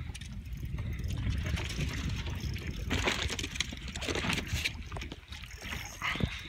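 Water slapping and trickling against the hull of a small boat, with wind rumbling on the microphone and a few brief louder splashes or knocks.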